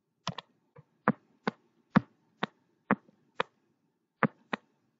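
A series of short, sharp clicks, about two a second and some in quick pairs, made while writing on the on-screen whiteboard.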